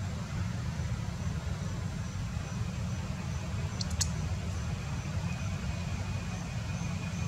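Outdoor ambience: a steady low rumble with an insect chirping faintly about twice a second, a brief sharp chirp about four seconds in, and a thin high steady buzz joining about five seconds in.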